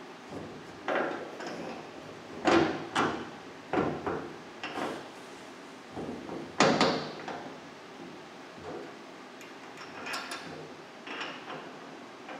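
Steel parts being handled while a bolt and bushing are fitted by hand into a rotary cutter's steel hitch frame: irregular clinks and knocks of metal on metal, the loudest about two and a half and six and a half seconds in.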